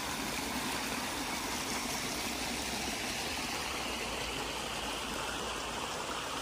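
Small stream rushing steadily over a low plank weir in a little waterfall, an even, unbroken splashing.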